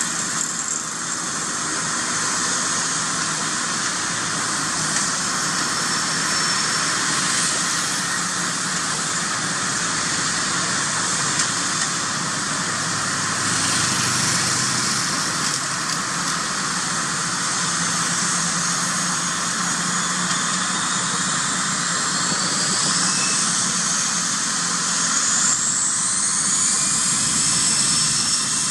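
Airbus A320 jet engines running steadily with a high whine as the airliner rolls along the runway. Over the last several seconds the whine rises in pitch and grows a little louder as the engines spool up.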